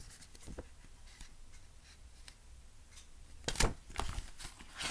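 Paper pages of a picture book rustling as the book is handled and a page is turned, with a brief loud swish of paper about three and a half seconds in and a few softer rustles after it.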